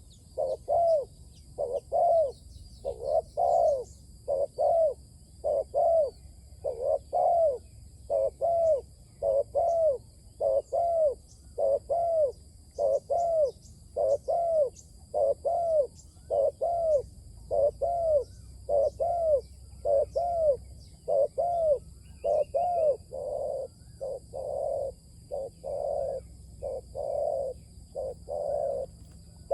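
Spotted dove cooing in a long, steady series of arched coo notes, a little more than one a second, with faint high chirps of other birds above.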